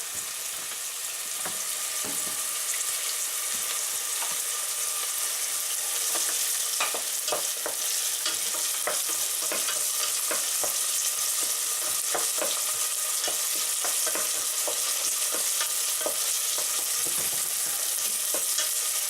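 Finely chopped onion sizzling steadily in hot oil in a frying pan, with occasional small clicks and scrapes of a utensil stirring it.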